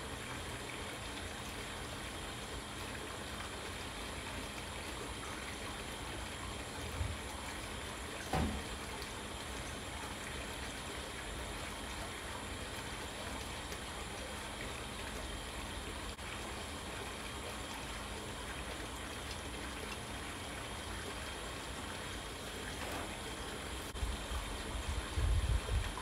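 Steady background hiss with a faint steady hum, broken by a few soft low thumps about seven and eight seconds in and again near the end.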